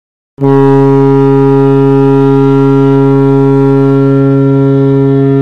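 NHL arena goal horn cutting in suddenly about half a second in and sounding one long, steady, loud blast.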